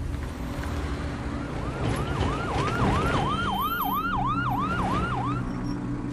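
Police siren going in a fast rising-and-falling yelp, about three sweeps a second. It swells up about two seconds in and stops about five seconds in.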